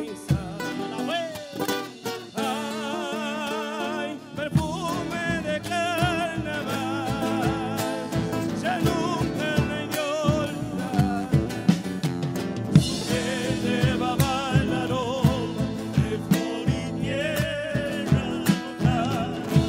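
Live band music: male voices singing with vibrato over strummed acoustic guitars and percussion, with sharp drum and cymbal strokes throughout.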